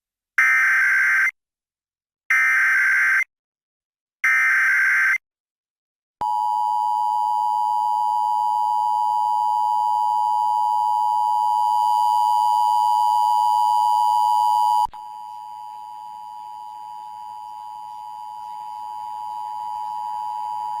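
Emergency Alert System test signal. It opens with the three short bursts of the SAME digital header, the screeching data tones that address the alert to receivers. About six seconds in comes the long steady EAS attention tone, which drops sharply in level about nine seconds later and carries on more quietly.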